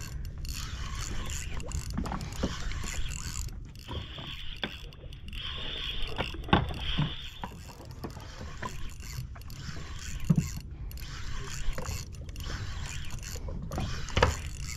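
Fishing reel being wound, a mechanical ticking, over a steady low hum from the boat's engine, with a few sharp knocks.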